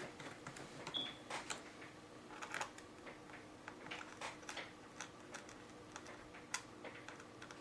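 Faint, scattered clicks and taps of a small screwdriver and a tiny metal screw being worked into a screw hole in a laptop's metal base.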